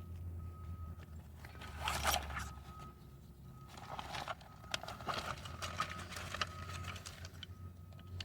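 Rustling and scraping as a tire plug repair tool and kit are handled and readied, loudest about two seconds in and again from about four to six and a half seconds. A steady low hum and a high beep repeating roughly once a second carry on underneath.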